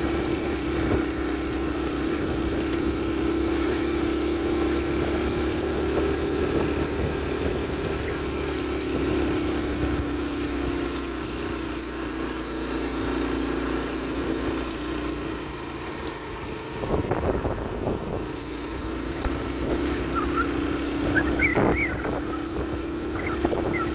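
Yamaha AG125 single-cylinder two-stroke motorcycle engine running at a steady cruising speed, with wind on the microphone. The engine note eases a little about two-thirds of the way through, and a few sharp knocks come near the end.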